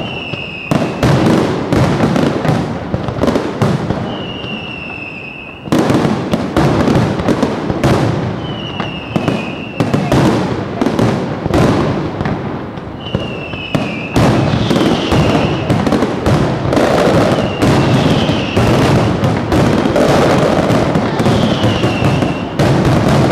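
Aerial fireworks display: dense crackling and rapid bangs from shells and firecrackers, with a short falling whistle recurring every few seconds. A burst of louder bangs starts about six seconds in.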